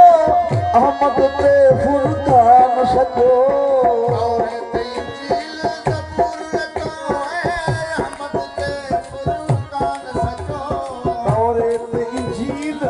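Sufi kalam music: tabla played in a steady rhythm, the bass drum's strokes sliding down in pitch, under a voice singing wavering, ornamented lines over sustained accompanying notes.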